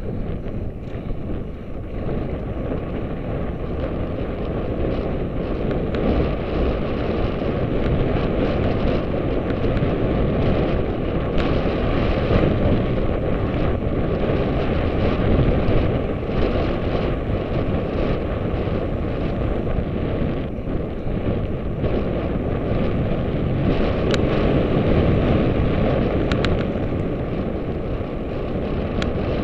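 Wind buffeting the camera microphone and tyre rumble from a mountain bike riding fast along a dirt trail, a steady heavy rush throughout. A few sharp ticks come in the last third.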